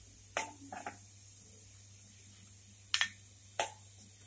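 Steel ladle clinking against a metal kadhai and a steel bowl while surplus frying oil is scooped out: two sharp clinks within the first second and two more around three seconds in.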